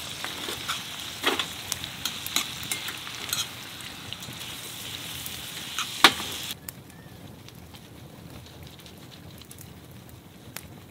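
Food sizzling and frying in a pan, a dense crackling hiss with scattered sharp clicks and one louder knock about six seconds in. The sizzle stops abruptly a little over halfway through, leaving only a faint low hiss.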